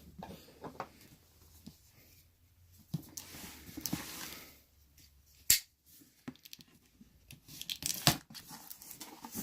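Cardboard product box being torn open, with irregular tearing and rustling and a couple of sharp snaps, one about halfway through and another near the end.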